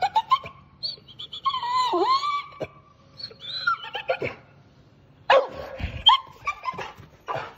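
American Staffordshire terrier whining and yelping in high, wavering cries, with two louder, sharper calls about five and six seconds in.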